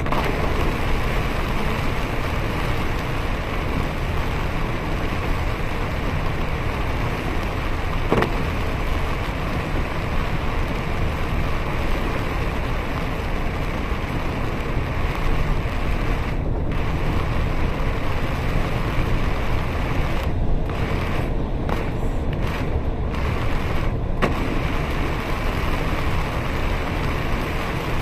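Steady noise of a bus driving fast on a wet highway in heavy rain: engine, tyres hissing through water and rain on the bodywork, with one sharp knock about eight seconds in. The high hiss drops away for moments several times near the end.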